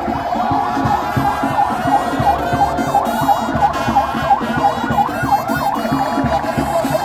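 Convoy escort vehicle siren in a rapid yelp, the pitch rising and falling about three times a second. Music with a steady low beat plays under it.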